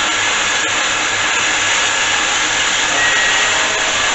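Homemade 2x72 belt sander running steadily, its motor and abrasive belt making a loud, even, high hiss over a faint hum.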